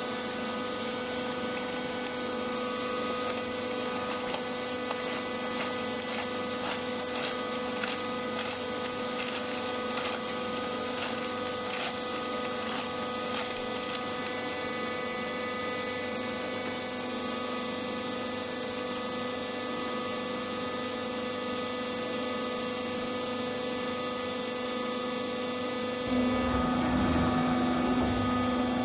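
Wood shaving baling machine running with a steady motor hum. Near the end it grows louder, with a deeper rumble added.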